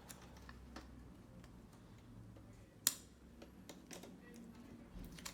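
Scattered light clicks and taps of parts being handled during a TV screen-panel swap, with one sharp, louder click about three seconds in.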